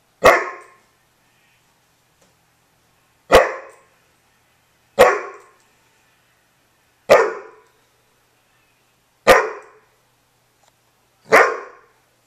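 A poodle barking six times, single short sharp barks a couple of seconds apart: demand barks at the dogs occupying the couch it wants to get onto.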